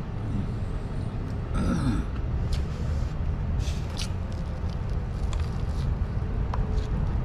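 Steady low rumble of street traffic, with a few faint clicks and a brief falling sweep about two seconds in.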